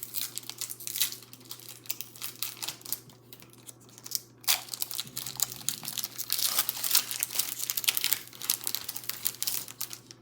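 Foil Pokémon booster pack wrapper crinkling and tearing as it is opened, busiest in the second half.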